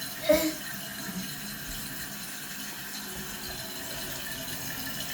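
Toilet tank refilling through its fill valve after the water supply is turned back on: a steady hiss of running water. A short, louder sound comes about a third of a second in.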